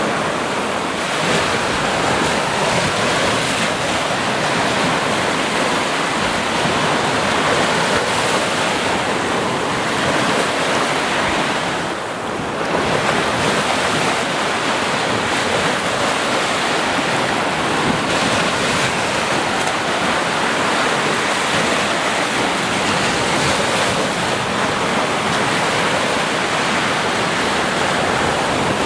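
Sea waves breaking on a beach: a continuous, dense wash of surf that eases briefly about twelve seconds in.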